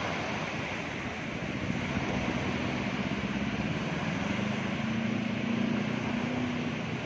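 Surf and wind noise, with a motor engine running steadily from about two seconds in, its pitch edging up a little past the middle.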